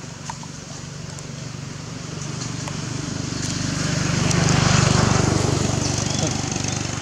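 A motor vehicle's engine running nearby, a steady low hum that grows louder to a peak about two thirds of the way through and then fades a little, as of a vehicle passing by.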